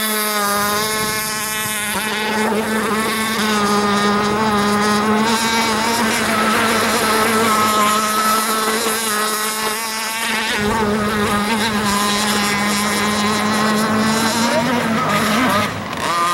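Radio-controlled model speedboat's motor running at full speed, a loud steady high-pitched whine that holds its pitch. It drops off briefly near the end and comes straight back.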